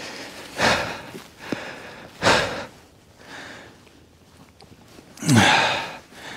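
A man breathing hard, winded from exertion: three heavy breaths about a second and a half to three seconds apart, the last, near the end, a voiced groan falling in pitch.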